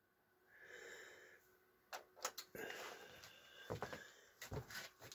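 Near silence with faint handling noise: a soft hiss early on, then a few sharp clicks and rustles from about two seconds in.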